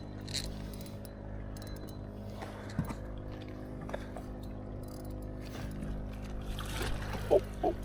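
Steady hum of a boat's motor running, with a few short knocks and splashes, the loudest near the end.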